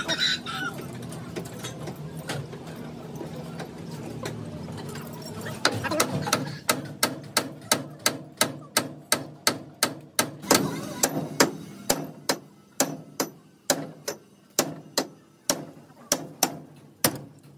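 Hammer blows struck in a steady rhythm, about two a second, starting about six seconds in, over a low steady hum.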